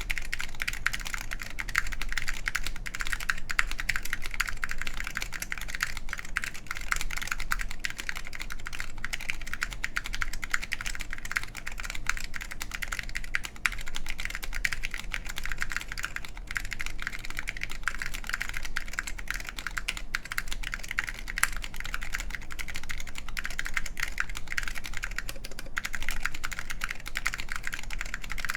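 Continuous fast typing on an ai03 Lunar II mechanical keyboard with wax-boiled SKCL Green ALPS linear switches in an aluminum plate, under Apple Extended Keyboard II keycaps: a dense, unbroken stream of keystrokes.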